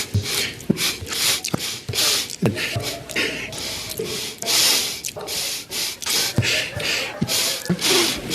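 A person sniffing hard through the nose over and over, quick sharp sniffs about two a second, with small clicks between them.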